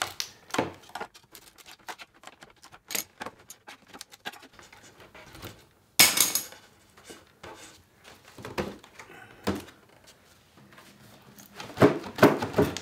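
Scattered clicks, creaks and knocks of a laminated plywood cabinet panel being worked loose by hand, with one loud sharp knock about six seconds in and a cluster of knocks near the end as the panel comes free.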